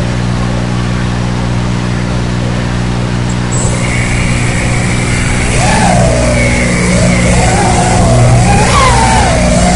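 FPV racing quadcopter's Emax MT2204 2300kV brushless motors with four-blade props, heard through the quad's onboard audio over the video link. A steady low electrical hum at first, then about five seconds in the motors spin up into a whine whose pitch rises and falls with the throttle as the quad takes off and flies.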